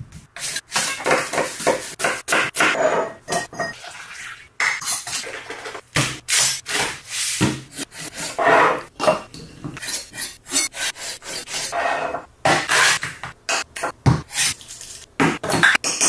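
A run of food-prep sounds on a wooden cutting board: a knife slicing a cucumber in quick irregular strokes, and a spoon scraping and clinking in a glass bowl.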